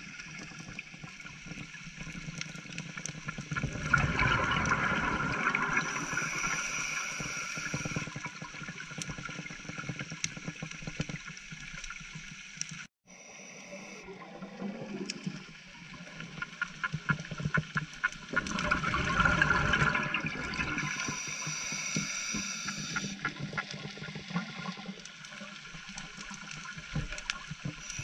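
Scuba diver breathing through a regulator underwater: twice, a long surge of exhaled bubbles gurgling, each ending in a high hiss of air through the regulator. Between the breaths the sound is steady, with a brief drop-out about halfway through.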